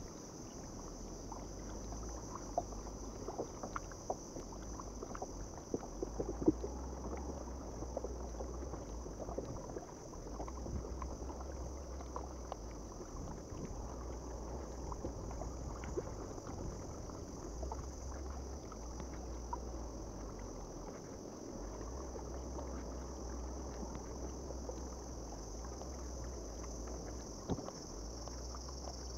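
Sit-on-top kayak being paddled: water swishing and dripping with the strokes, with scattered light knocks of the paddle against the hull. A steady high insect drone runs underneath, and wind rumbles on the microphone now and then.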